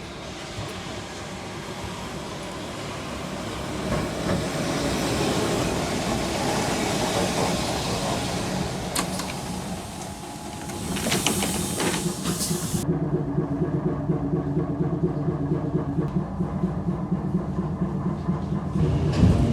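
Train running: a steady rumble and rushing noise that builds over the first half. About two-thirds of the way in it gives way abruptly to a duller, steadier low hum.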